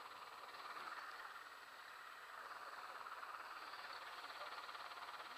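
Tractor towing a boat on its trailer: the engine running steadily at low speed, mixed with the rumble of the trailer rolling along the road.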